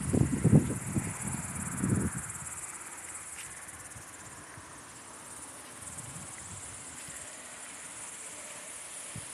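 Crickets chirring steadily in a continuous high-pitched drone, with a few low, uneven rumbles in the first two seconds.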